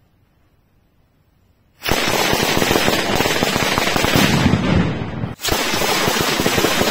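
El Gato 10-metre traca valenciana firecracker string going off, with a small charge every half metre. Near silence while the fuse burns, then about two seconds in a rapid, dense chain of firecracker bangs starts. It breaks off for a moment about five seconds in, then carries on.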